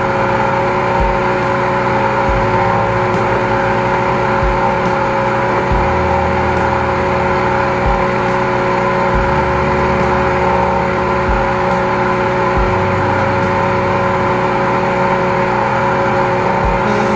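High-pressure drain jetter's engine-driven pump running steadily with a constant whine, while its jetting hose is worked down a drain to clear a grease clog. Dull low thumps recur every second or so.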